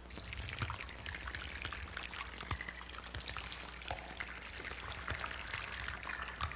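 Underwater hydrophone recording of melting glacier ice: a dense, continuous crackle of small pops that sounds a bit like bacon frying. Each pop is a bubble of ancient, highly compressed air bursting out of the ice into the water.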